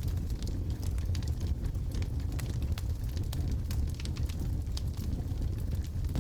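Wood fire burning in a fireplace: a steady low rumble of the flames with frequent sharp, irregular crackles and pops from the logs.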